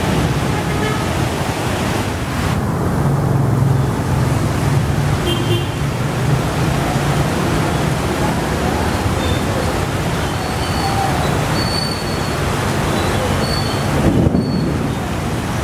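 Steady, dense noise of heavy rain and wind at the roadside, with traffic going by. A vehicle's engine hum swells from about three to six seconds in.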